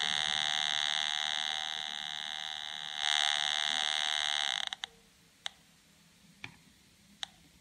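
Homemade PI Polones pulse-induction metal detector sounding its buzzing audio tone through its speaker. The tone sinks lower partway through, comes back louder at about three seconds, then cuts off suddenly at about four and a half seconds as a control knob on the board is turned. A few sharp single clicks follow.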